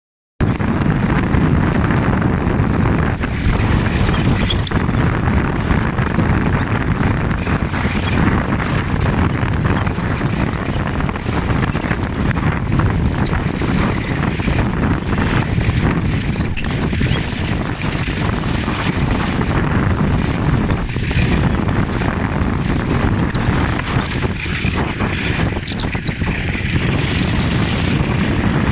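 Wind rushing over the microphone while riding fast behind a kite, a steady noise heaviest in the low end, with short high-pitched squeaks coming and going throughout.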